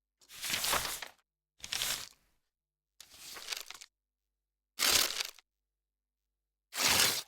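Paper crumpling and rustling, heard as five separate short takes of up to about a second each, with dead silence between them.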